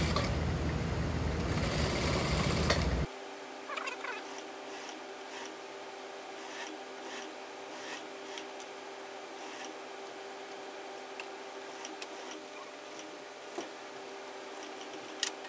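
Industrial lockstitch sewing machine running, stitching through jacket fabric, then cutting off abruptly about three seconds in. After that a faint steady hum remains, with fabric being handled and a few light clicks.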